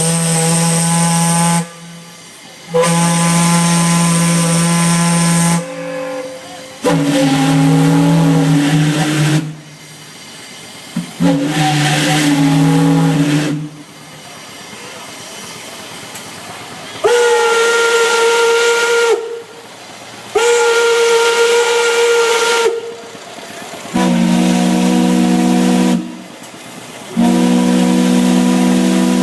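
Whistles blowing a series of eight blasts of about two to three seconds each. Every blast sounds several notes at once, and the chord changes from blast to blast: the fifth and sixth blasts are higher-pitched than the others.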